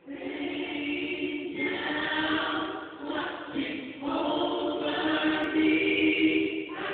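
A choir singing, many voices together, in phrases with brief breaks between them.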